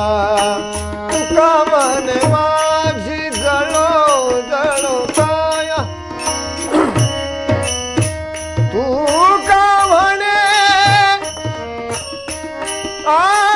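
Marathi devotional abhang: a man singing to a harmonium's held chords, with tabla strokes and small hand cymbals (manjira) keeping a steady beat.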